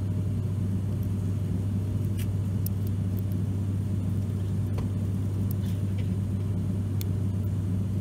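Cabin drone of an ATR turboprop airliner in flight: a loud, steady low hum from the propellers over constant rumble. A few faint clicks come through it.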